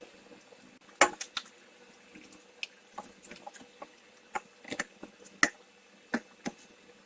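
Scattered sharp metallic clinks and light knocks of shock absorber strut parts being fitted together by hand, the loudest about a second in and again about five and a half seconds in.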